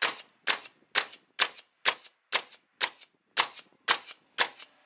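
Ridgid pneumatic framing nailer firing in bump-fire mode, driving 3-inch coated nails into a 2x6: about ten sharp shots at an even pace of roughly two a second.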